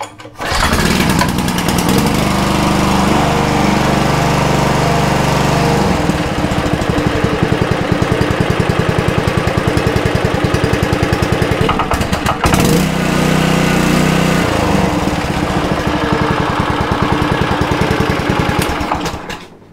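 Subaru SP170 single-cylinder engine on a pressure washer starts about half a second in and runs steadily, unloaded with the pump not hooked to water. Its speed dips briefly about twelve seconds in, then it runs on until it is shut off near the end. It is running on fresh oil after an overfilled crankcase was drained and flushed.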